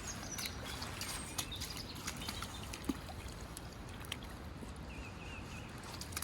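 Steady rush of running water from a rain-swollen trail stream, with a few faint scattered clicks.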